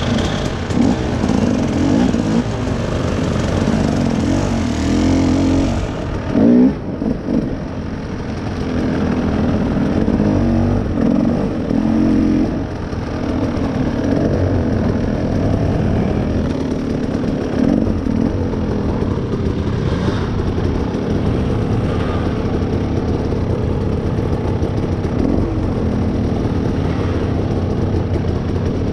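Off-road vehicle engine running through a trail ride, its revs rising and falling again and again, with a short louder burst about six and a half seconds in.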